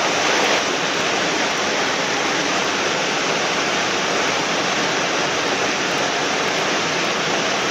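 Water pouring over a small weir into a stream pool: a steady rushing noise.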